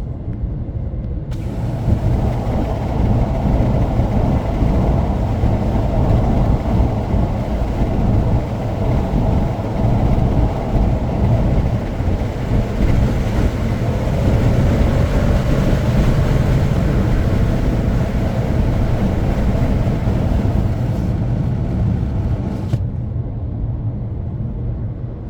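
Cabin noise of an MG ZS with a 1.0-litre turbo engine cruising on the road: a steady low drone of engine and tyres, with a loud rush of wind coming in through a partly opened side window. The wind rush starts about a second in and drops away suddenly near the end, leaving the low drone.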